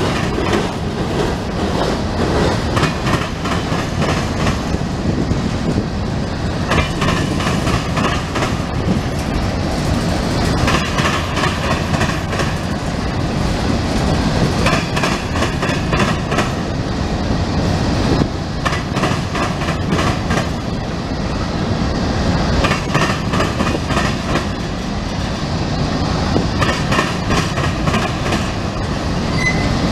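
Freight train of loaded covered hopper cars rolling steadily past, a continuous rumble of steel wheels on rail with repeated clacks as the wheelsets cross rail joints.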